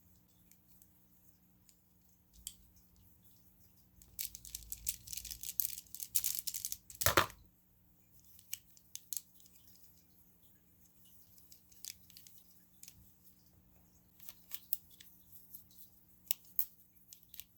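Hands handling small plastic fidget toys and packaging: light scattered clicks, a burst of rustling and crinkling a few seconds in that ends in one sharp knock, then occasional soft taps and clicks.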